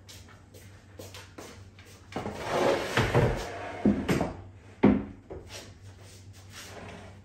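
White painted wooden bed ends of an IKEA Hemnes daybed being carried in, rubbing and scraping for about a second and a half, then knocking twice as they are set down on the floor, the second knock the loudest.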